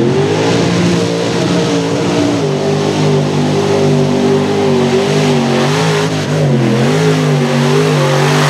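A mud truck's engine revving hard, climbing sharply at the start and then held near full throttle with small rises and dips, over a steady hiss.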